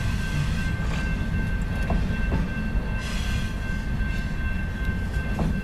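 BNSF double-stack container train rolling past: a steady low rumble of wheels on rail with a few faint clicks, and a thin, steady high tone running underneath.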